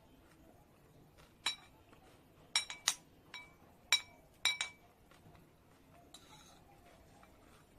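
Cutlery clinking against a dish while salad is scooped up: a quick cluster of short, ringing clinks in the middle, the loudest about four seconds in.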